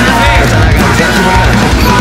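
Loud background music from a rap-rock song, playing through a passage without rapped words.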